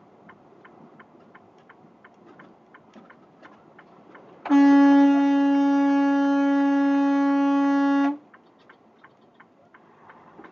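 Truck horn blown in one long steady blast of about three and a half seconds at a single pitch. Faint regular ticking, about three times a second, runs before and after it.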